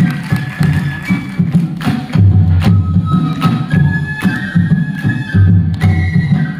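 Tripuri folk dance music played live: a drum beating a steady rhythm under a flute's held, stepping melody, with sharp clicks keeping time.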